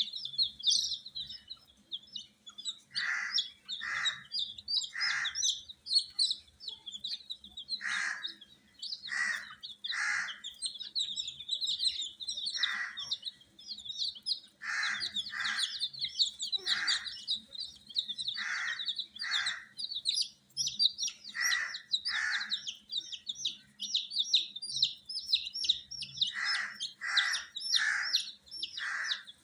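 A group of baby chicks peeping constantly in a dense, high chatter, with louder, lower calls breaking in every second or two, often two or three in a row.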